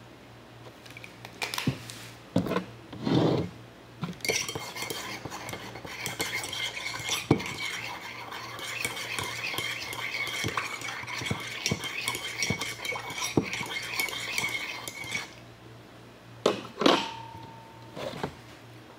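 A spoon stirring a drink in a ceramic mug, clinking quickly and continuously against the inside for about ten seconds. A few knocks come before it, and near the end two sharp taps, one with a short ring.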